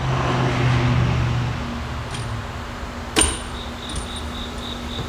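Light handling of a motorcycle fork tube and its new fork seal being slid on, with a sharp click a little after three seconds and a softer one about a second later. A low steady hum runs through the first two seconds.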